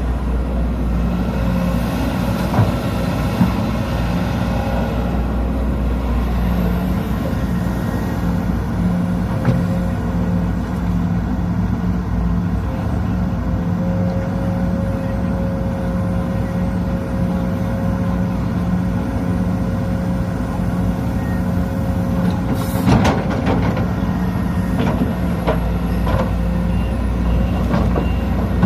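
Sumitomo SH210 hydraulic excavator's diesel engine running steadily under working load. A steady whine holds for several seconds past the middle, and a few sharp clanks come near the end.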